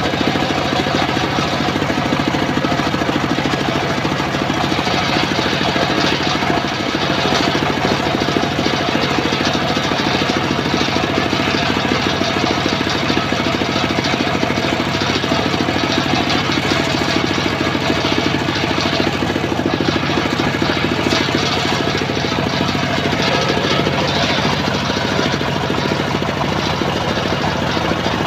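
Engine-driven homemade circular saw bench running steadily, its large blade cutting lengths of wood for roof rafters.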